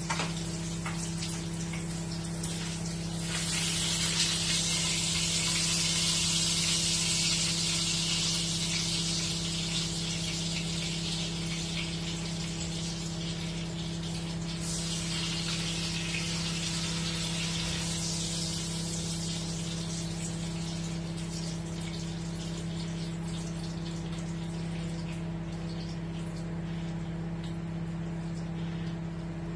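Food sizzling in a frying pan on a gas hob, the sizzle swelling loudest about three seconds in and again around the middle, over a steady low hum.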